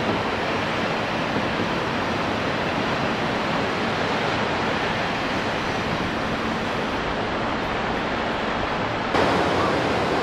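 Steady rushing outdoor noise of wind and distant surf. About nine seconds in it switches abruptly to a slightly louder, brighter rushing noise.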